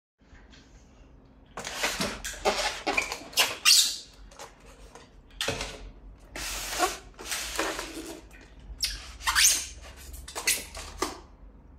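A styrofoam shipping box being opened by hand: the foam lid and inserts squeak and scrape against each other, with packing tape being pulled, in a series of irregular bursts.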